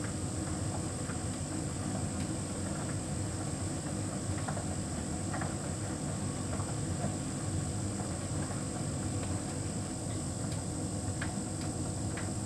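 Hotpoint heat pump tumble dryer running, its drum turning with a steady low rumble and a faint high whine, with light scattered ticks of the load tumbling.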